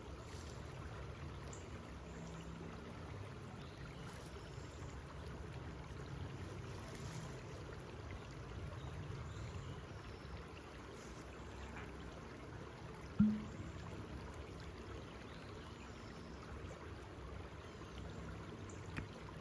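Steady low rushing of flowing water, with one short thud about thirteen seconds in.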